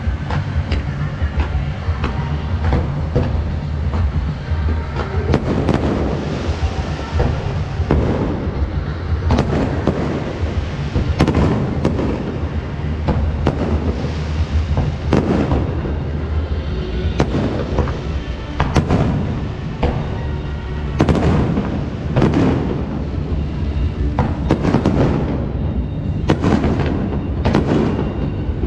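A fireworks display: shells bursting in quick succession, dozens of sharp bangs, many with a crackling or rumbling tail, over music playing underneath.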